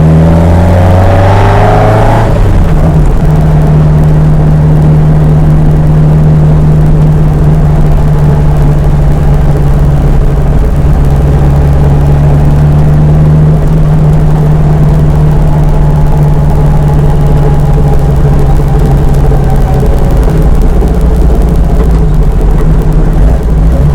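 Ginetta sports car engine heard on the move: revs rise for about the first two seconds, then a gear change and a steady running note at cruising speed, over road and wind noise.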